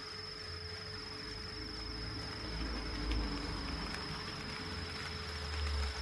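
HO-scale model trains rolling on KATO Unitrack: a low rumble that swells and fades, with a few faint clicks, under a steady high-pitched whine.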